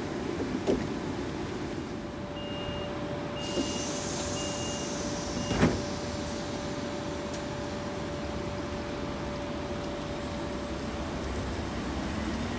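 Electric commuter train standing at the platform with a steady electrical hum; about two seconds in, a run of short high door-warning beeps, then a loud thump as the doors shut. Near the end a low rising whine begins as the train starts to move off.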